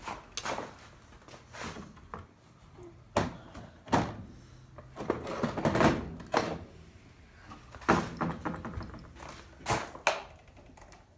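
Metal hand wrenches knocking and clinking as different sizes are tried on a mower bolt and handled, a series of separate sharp knocks at irregular intervals.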